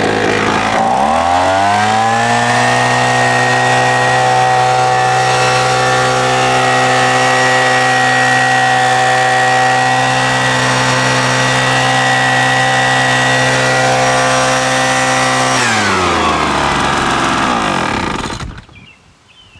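Ryobi two-stroke gas leaf blower revving up from idle about a second in and held steady at full throttle. Near the end the throttle is released, the revs fall away and the engine shuts off.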